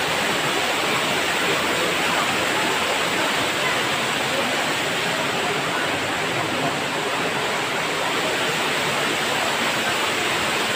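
Waterfall cascading over rocks into a pool: a steady, even rush of falling water.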